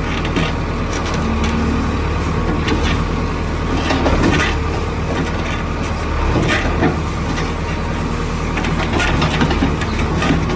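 JCB 3DX backhoe loader's diesel engine running steadily under working load, with a few knocks and crunches from the digging bucket along the way.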